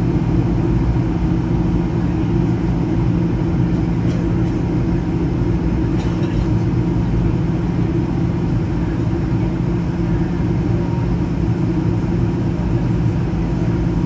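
Steady cabin drone of a Boeing 737 airliner in flight, with its engine and airflow noise holding at one even level and a constant low hum underneath.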